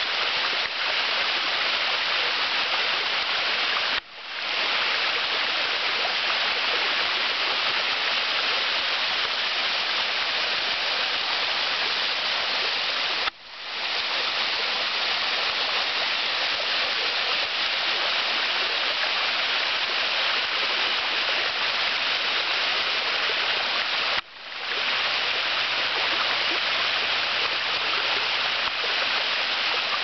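Small waterfall splashing down a mossy rock face into a shallow stream, a steady rush of falling water. The sound cuts out suddenly three times and fades back in within about a second.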